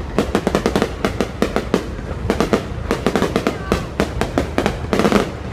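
Fireworks display: a dense, rapid string of bangs and crackles, several bursts a second.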